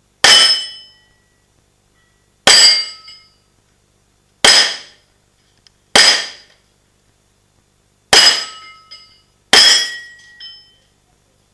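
Six single shots from a Stechkin APS pistol (9×18 mm Makarov), slow and unhurried, about one and a half to two seconds apart. Each has a short echoing tail with a metallic ring.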